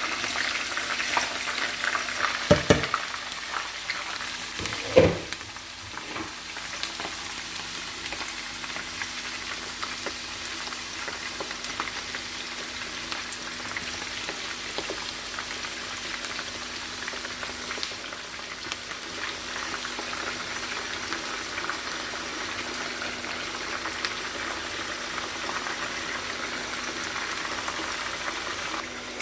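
Food frying in hot olive oil, a steady crackling sizzle, with two knocks a few seconds in.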